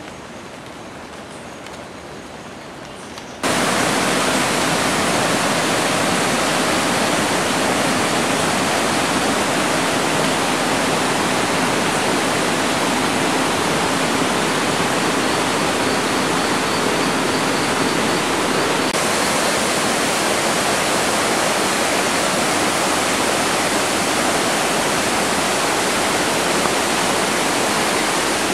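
A faint hiss that gives way, about three seconds in, to a loud, steady rushing noise that starts abruptly.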